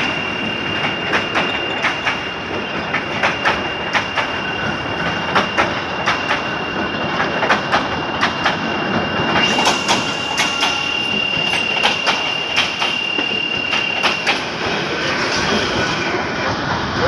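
Passenger coaches rolling past close by, their wheels clattering irregularly over rail joints, with a thin steady high squeal from the wheels on the rails that stops about three quarters of the way through.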